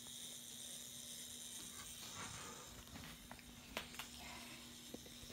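Faint steady hum and hiss, then from about two seconds in a run of clicks and knocks from the camera being handled and moved, the sharpest two close together near four seconds in.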